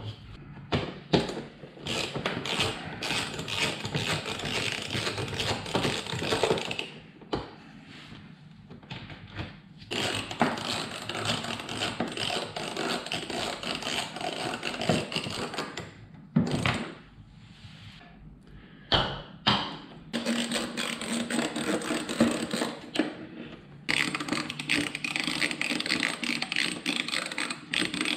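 Hand ratchet clicking in long runs of rapid ticks as fasteners are turned, with short pauses and a few knocks between runs.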